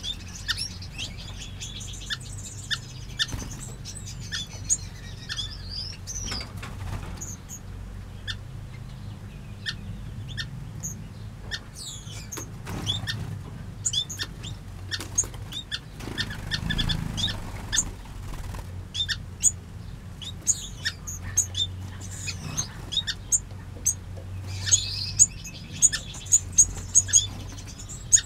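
A mixed flock of aviary finches and waxbills calling: many short chirps and tweets scattered throughout, with a busier run of song near the start and again near the end. Wings flutter now and then as birds fly about.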